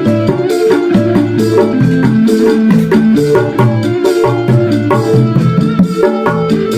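Dangdut-style music: a fast, busy ketipung and kendang hand-drum pattern played over a pitched bass and melody line.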